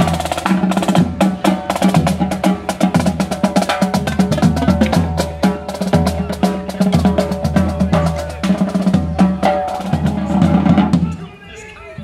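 Marching drum line playing a fast cadence of snare-drum strikes over repeated bass-drum beats, breaking off near the end.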